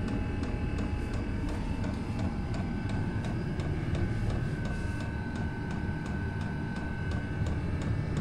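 Chinese all-in-one diesel air heater running on power level two of six: a steady combustion rumble and fan whine, with the fuel pump's quick, regular ticking.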